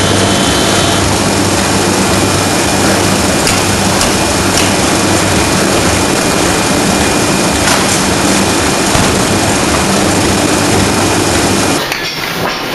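Ring rolling machine running under power: a loud, steady mechanical drone with a low hum and occasional sharp metallic knocks. Near the end the sound cuts suddenly to a quieter run of rapid, evenly spaced clicks.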